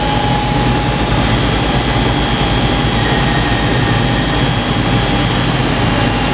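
Vibratory rivet-cleaning machine running: a loud, steady mechanical drone with a fast rattle underneath and a constant whine, as the vibrating tray shakes blind rivets to sift out metal chips and dust.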